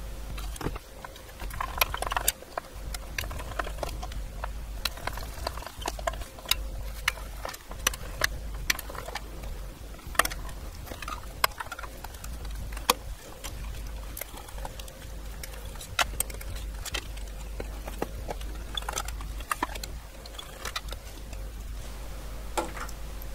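Screws being undone from the metal frame of a computer card cage, with irregular small metallic clicks and taps of screwdriver, screws and parts being handled, over a steady low hum.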